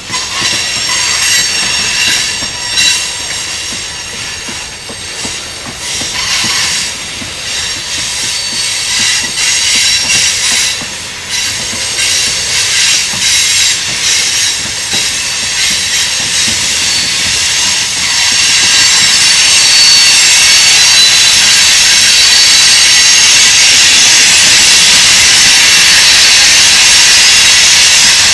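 Freight train tank cars rolling past on steel wheels, clacking over the rail joints, with a high metallic wheel squeal. The squeal grows louder and steadier about two-thirds of the way through.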